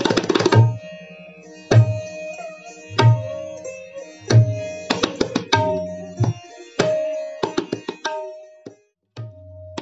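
Tabla playing: sharp, ringing strokes on the treble drum at a steady pitch, deep booming bass-drum strokes about every second and a quarter for the first few seconds, and quick runs of strokes later on.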